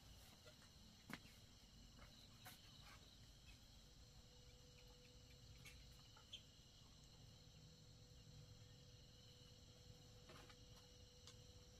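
Near silence with the faint, steady chirring of crickets and a few soft clicks; a faint steady hum comes in about halfway.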